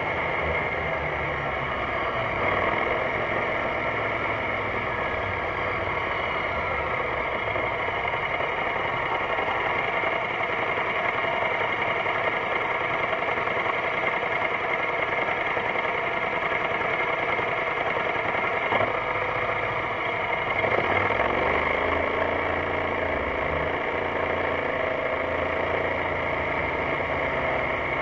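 BMW C650GT scooter's parallel-twin engine running steadily, its pitch climbing about two-thirds of the way through as it speeds up.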